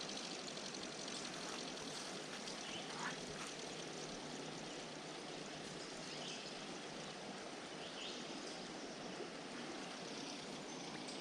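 Creek water flowing steadily, a soft even rushing and trickling.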